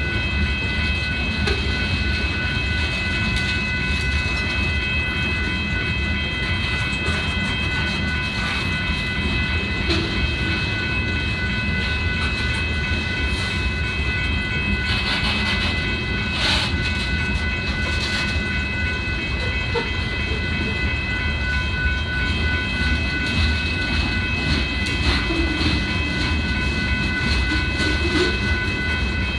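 Union Pacific freight train's hopper cars rolling past on the track in a steady, heavy rumble, with the wheels knocking over rail joints several times in the middle. A steady high-pitched ringing runs over the whole passage.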